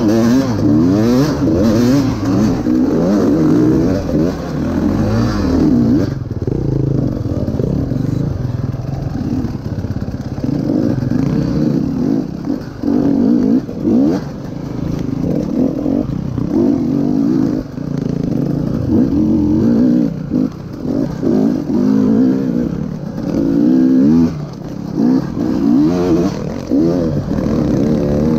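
KTM 300 EXC TPI two-stroke enduro engine revving up and dropping back over and over as the bike is ridden along the track, with scattered clattering knocks from the bike over rough ground.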